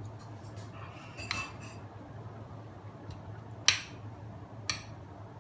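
Cutlery clinking against a plate during eating: a few short, sharp clinks, the loudest about two-thirds of the way in, over a steady low hum.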